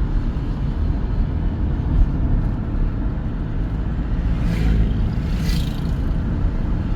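Steady low rumble of a car driving along a highway, heard from inside the cabin, with two brief hissing swells about four and a half and five and a half seconds in.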